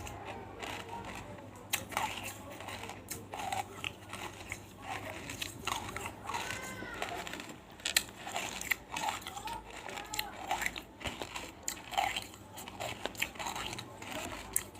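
Hard, chalky pieces of banslochan (tabashir, the silica concretion from bamboo) being bitten and crushed in the mouth, giving many short, sharp crunches and crackles.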